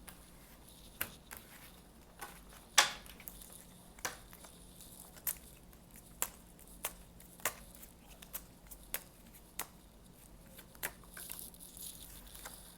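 Kipper fortune-telling cards being shuffled and handled by hand: scattered light clicks and snaps of the card stock, with one louder snap about three seconds in.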